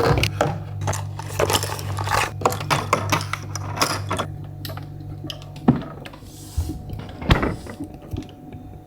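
Juice drink containers clicking and knocking as they are set into a refrigerator, quickly at first and then only a few knocks. A low steady hum runs under the first half and stops with a sharp knock a little past halfway.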